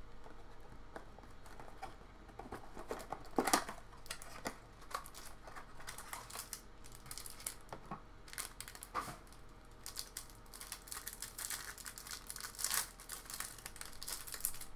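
Crinkling plastic wrap and rustling cardboard as trading-card packaging is opened and handled, with scattered sharp clicks and taps, the loudest about three and a half and nine seconds in.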